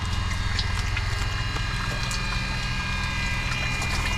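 Small electric oil-extraction pump, run off a portable jump-starter pack, pumping the engine oil out of an outboard motor with a rapid, steady pulsing.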